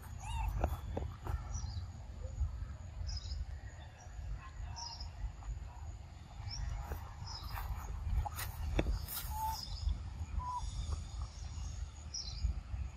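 Outdoor ambience of birds chirping in short scattered calls over a low steady rumble, with a few crisp crunches from a macaque biting into fruit about two-thirds of the way in.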